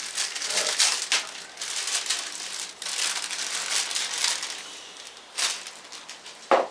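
A clear plastic Ziploc bag crinkling and rustling in irregular bursts as it is handled and pulled open, with a single sharp knock near the end.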